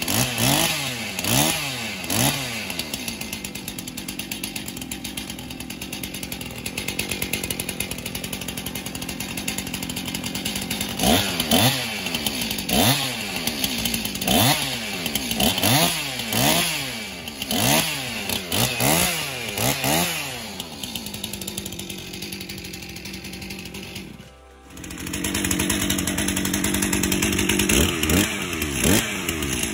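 Two-stroke engine of a rebuilt Stihl MS261 C chainsaw running and being revved again and again, each throttle blip a rising then falling whine, with stretches of steadier running between. The sound breaks off briefly about 24 seconds in, then the saw runs and revs again.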